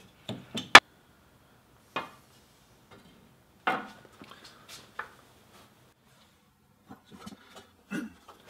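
Hinged wooden clamping table and its clamps being handled as the table is tilted: a sharp clack a little under a second in, then a few scattered knocks and light clicks of wood and metal.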